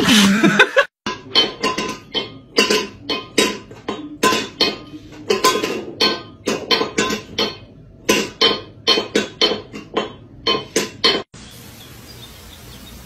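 A quick, uneven series of ringing metallic clinks, two to three a second, cutting off abruptly about eleven seconds in.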